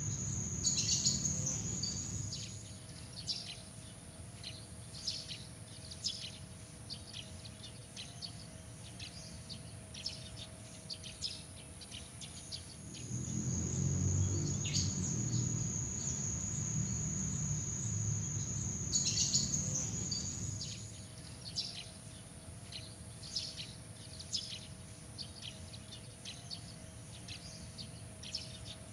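Night insect chorus: a steady, high-pitched cricket-like trill with many short, high chirps scattered over it. The trill shifts to a different pitch twice, and a low rumble swells up about halfway through, lasting several seconds.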